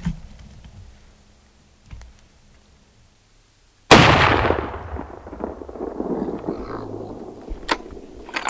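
A single shot from a Howa 7mm-08 bolt-action hunting rifle, about four seconds in. The loud report echoes and fades away over a couple of seconds. Two short, sharp clicks follow near the end.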